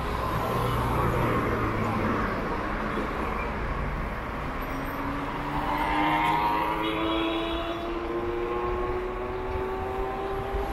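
A road vehicle running: a low hum in the first few seconds, then a whine that rises slowly and steadily in pitch from about four seconds in.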